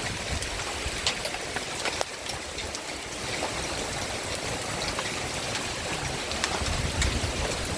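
Hail coming down hard: a dense, steady hiss with scattered sharp clicks of hailstones striking hard surfaces.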